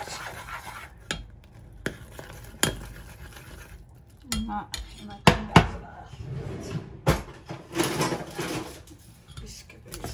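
A spoon stirring and scraping in a stainless steel saucepan, knocking sharply against the pot several times, as flour is beaten into hot butter and water for choux pastry dough.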